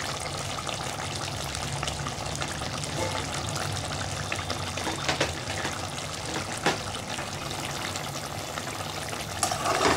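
Capsicum chicken gravy simmering in the pot: a steady bubbling, with a couple of light clicks about five and seven seconds in, as a spatula touches the pot.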